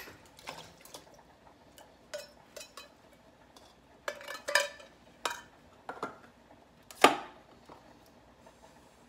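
Canned salmon being emptied into a mixing bowl: scattered clinks and knocks of the metal can against the bowl, the loudest about seven seconds in with a short ring.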